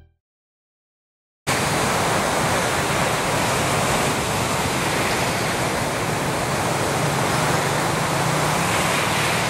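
Gas flare stack burning off waste gas: a steady, loud rushing roar with a low hum underneath, which starts abruptly about a second and a half in.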